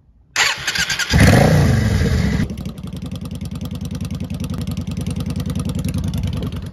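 V-twin cruiser motorcycle engine starting: the starter cranks briefly, the engine catches about a second in with a blip of revs that falls back, then settles into a steady, evenly pulsing idle through the exhaust pipes.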